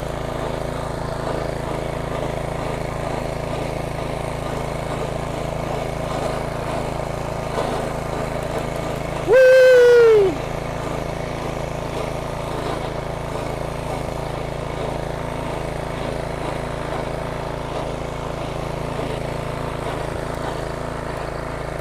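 A small engine running steadily at an even speed. About nine seconds in, a loud hoot sounds over it for about a second, holding one pitch and then falling off at the end.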